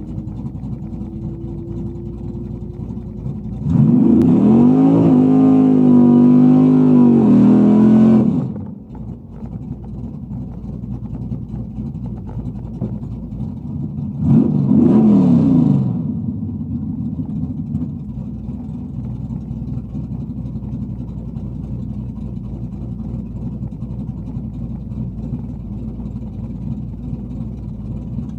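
Carbureted Chevy small-block V8 idling, heard from inside the truck's cab. It is revved up and held at high rpm for about four seconds, then drops back to idle, and is revved again briefly about ten seconds later.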